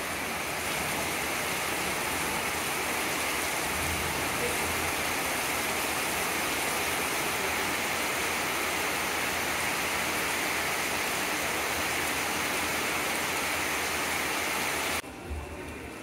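Heavy tropical rain pouring down in a steady, dense hiss, which cuts off abruptly about a second before the end.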